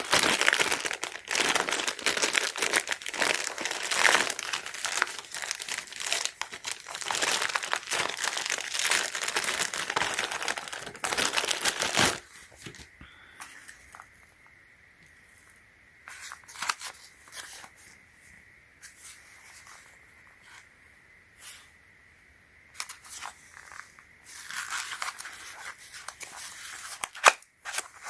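Plastic and paper packaging crinkling and tearing as a battery package is opened by hand, dense for about twelve seconds. It then goes quieter, with scattered light clicks of handling, and the crinkling comes back near the end.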